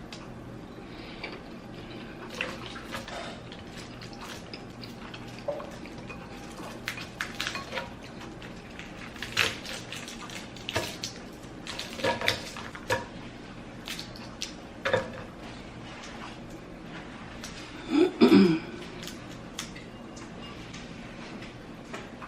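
Seafood eating close to the microphone: scattered clicks and clinks of handling food and tableware at the plate, with a louder, longer burst about eighteen seconds in.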